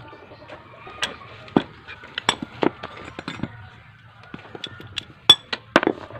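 Metal hand tools clinking and knocking irregularly against the scooter's CVT parts as a 14 mm socket wrench and a pulley holder are fitted to the pulley nut. The sharpest knock comes about five seconds in.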